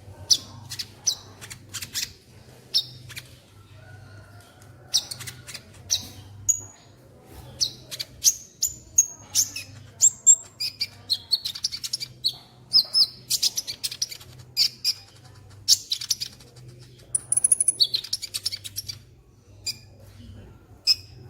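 Sunbird (Indonesian 'kolibri') calling: rapid, sharp high chirps and short twittering runs in irregular bursts, densest through the middle, over a faint low hum.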